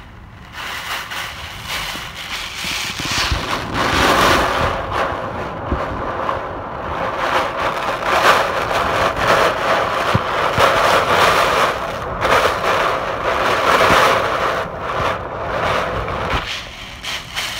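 Hurricane-force wind of about 120 mph gusting through trees with driving rain. It swells about half a second in, stays loud with repeated surges, and eases near the end.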